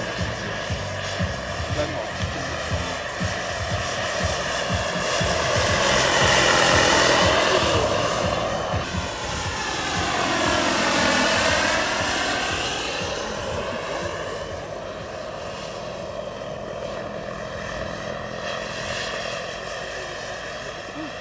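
Radio-controlled scale model Eurocopter EC 120 helicopter in flight, its rotor and drive whining in a stack of high tones. The whine grows louder twice, about a third and halfway through, bending down and back up in pitch as it passes, then fades as the model moves away.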